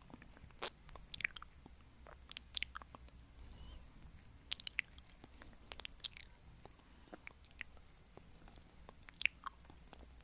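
Mouth licking and sucking a swirled hard-candy lollipop, right up against a lavalier microphone: irregular short clicks and smacks, often in small clusters, with one louder smack near the end.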